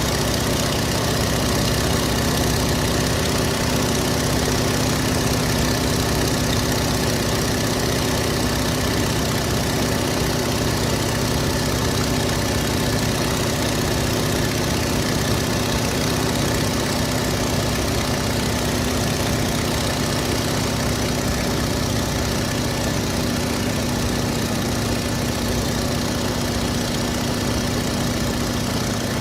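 Stearman biplane's radial engine running steadily in level flight, heard from the open cockpit: a constant drone of unchanging pitch under heavy rushing wind.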